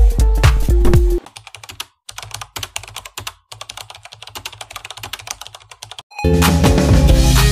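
Computer-keyboard typing sound effect, rapid clicks for about five seconds, between stretches of music: background music cuts off about a second in, and louder music with a steady beat starts near the end.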